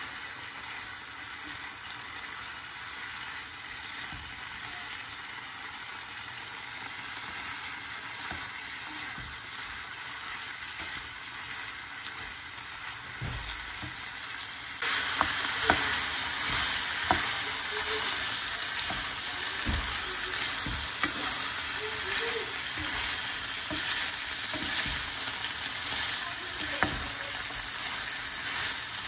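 Chicken frying in oil in a pan, sizzling steadily. About halfway through the sizzle suddenly gets louder and brighter, and a stirring utensil knocks against the pan now and then.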